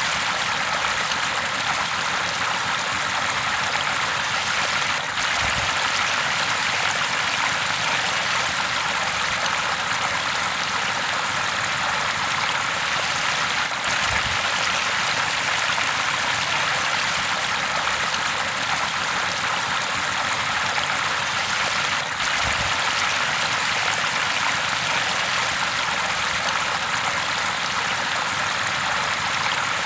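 River water rushing and splashing over rocks in a steady, unbroken stream.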